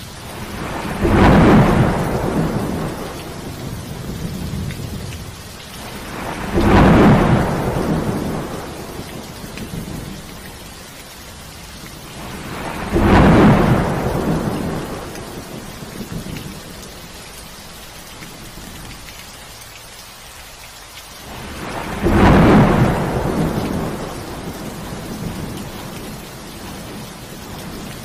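Steady rain under a thunderstorm, with four claps of thunder. Each clap starts suddenly and rumbles away over a few seconds.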